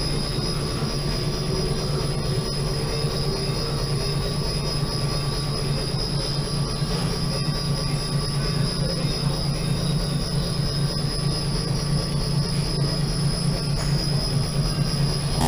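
Ruidcar road simulator shaking a Ford Focus on its wheel platforms: a steady mechanical rumble and rattle, in which the car's suspension noise that is being hunted comes through.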